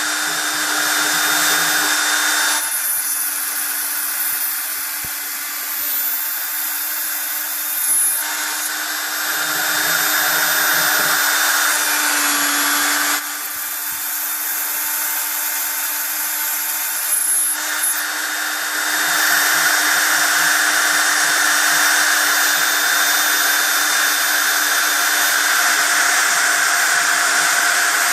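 CNC router spindle milling aluminium checker plate: a steady spindle tone under a hissing cutting noise that grows and fades every few seconds as the cutter works the metal.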